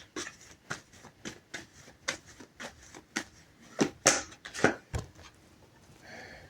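Tarot cards being shuffled and handled: a string of light, irregular card flicks and taps, with a few louder slaps about four seconds in.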